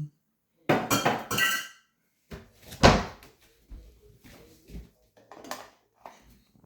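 Dishes and cutlery clinking and knocking as a dishwasher is unloaded: a quick cluster of ringing clinks about a second in, one louder knock near three seconds, then lighter knocks.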